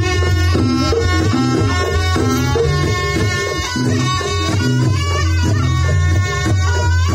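Live Banyuwangi jaranan gamelan music: a nasal, shawm-like reed pipe playing a wavering melody over a steady low drone, with quick drum strokes and gongs underneath.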